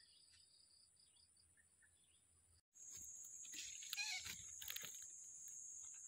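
Steady high-pitched insect shrilling, faint at first with a few short chirps, then louder after a cut about two and a half seconds in. A brief flurry of short animal calls comes about a second after the cut.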